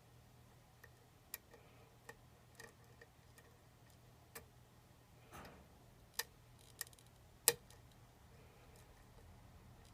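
Lock pick working the pins of a challenge lock: scattered sharp metallic clicks at irregular intervals, the loudest about seven and a half seconds in.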